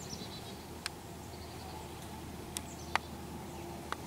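Quiet woods with a few faint, short, high bird chirps and four sharp clicks, the loudest about three seconds in.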